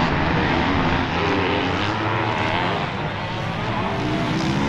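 Several motocross racing engines running on the track, their pitch rising and falling as the riders rev and shift.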